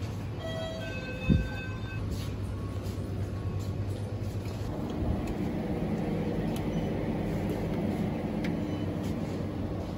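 Convenience-store background hum from the refrigerated drink cabinets and air conditioning. A short run of electronic beeps comes in the first two seconds and a single thump just after a second in. The hum grows a little fuller about five seconds in.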